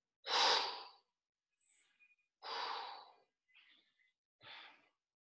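A man breathing out hard through his mouth three times, about two seconds apart, each breath fainter than the last. This is deliberate exertion breathing while he holds a wall sit.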